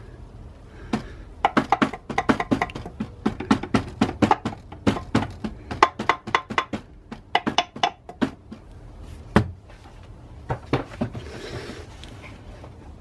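Rapid, irregular knocking on a BMW N47/N57 crankshaft pulley (vibration damper) as it is worked loose from the crankshaft after its bolts are out, several sharp knocks a second with a short lull and one louder knock near the end.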